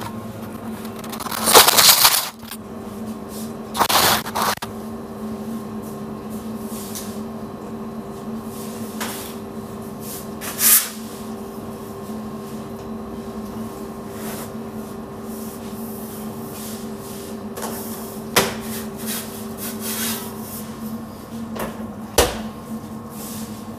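Handling knocks and clunks, about five spread out, the loudest about two seconds in, over a steady low hum.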